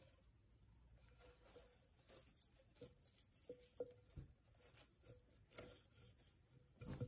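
Faint rustling with scattered light clicks and taps from hands working among a potted monstera's stems and coir support poles during repotting.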